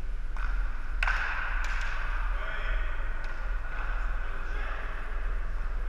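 Floor hockey play on a gym floor: a few sharp clacks of sticks and ball, the loudest about a second in, ringing in the hall's echo, with players calling out over a steady low hum.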